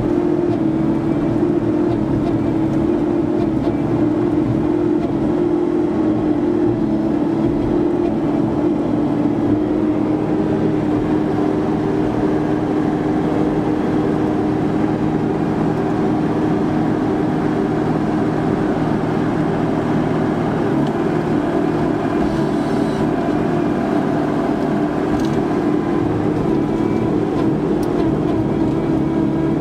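Vimek 404 T3 compact forestry harvester's engine and hydraulics running steadily while its crane and harvester head work, a constant drone with a steady hum, heard from inside the cab.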